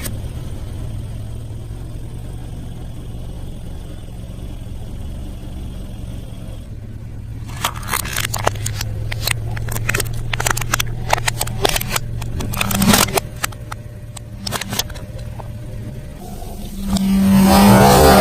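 Close-up eating sounds: a run of sharp crunches from bites of crunchy fried food for several seconds, over a steady low hum. A louder rustling or crunching sound starts near the end.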